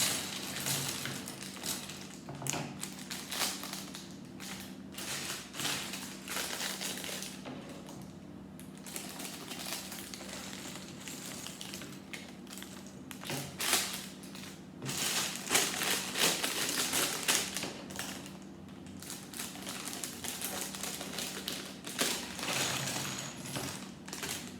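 Small plastic Lego pieces clattering and clicking as they are sorted and spread out by hand, in irregular bursts.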